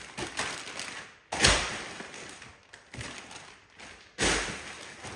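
Two thuds from items and packaging being handled and set down, about a second in and again near the end, each trailing off in a short rustle, with lighter taps between.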